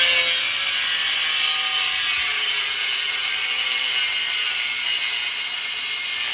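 Corded angle grinder with a cut-off wheel cutting through a Lexus IS300 steel subframe: a steady, loud grinding hiss with a faint whine that slowly drops in pitch as the wheel works along the cut line.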